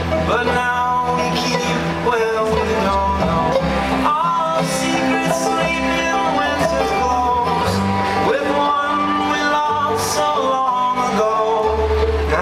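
Live acoustic folk band: voices singing over an upright bass and a strummed acoustic string instrument.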